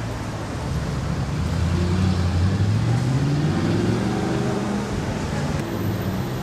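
Audi R8's 4.2-litre V8 through a custom exhaust, pulling away under throttle: the engine note rises in pitch and gets louder about two seconds in, then eases off. The sound changes abruptly shortly before the end.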